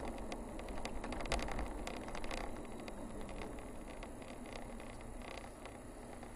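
Car driving on a paved road: steady tyre and engine noise with scattered light rattles and clicks, easing off a little toward the end.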